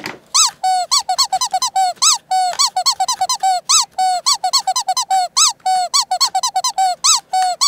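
Cleaning cloth rubbing hard inside a camera's battery compartment, squeaking rapidly over the plastic and terminals at about five squeaks a second, each rising and falling in pitch. The cloth is scrubbing off residue from a leaked battery.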